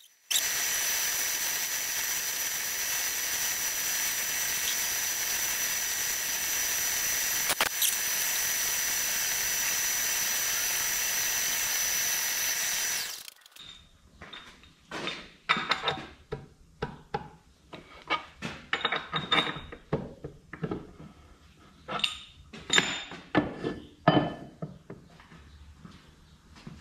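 Milling machine running as its end mill cuts a keyway into a steel pumping-unit jack shaft: a steady hiss with a thin high whine. It cuts off suddenly about halfway through and is followed by scattered metallic clicks and knocks of hand work at the vise.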